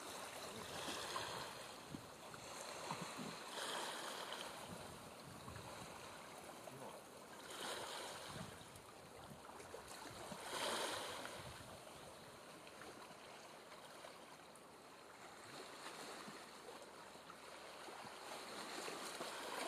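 Small sea waves lapping, with a soft wash of water that swells every few seconds.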